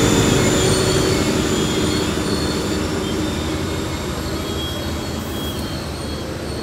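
Pacific National diesel freight locomotives at the tail of a hopper train passing and pulling away, their engine rumble and wheel noise fading steadily. Thin high-pitched wheel squeal runs over it.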